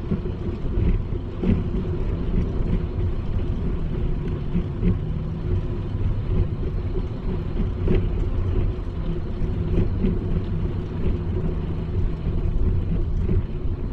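Steady low rumble of a bicycle rolling over brick paving stones, carried to the camera through the bike, with an occasional small knock from the bumps.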